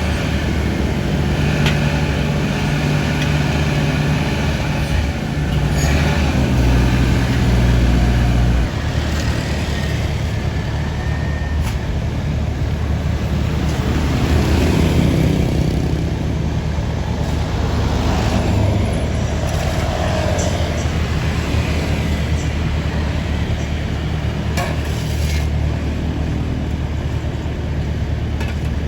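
Heavy road-paving machinery running at an asphalt laying job, the diesel engines of the paver and dump truck giving a steady low drone that briefly deepens and swells about a quarter of the way in. A few sharp knocks and clanks cut through it.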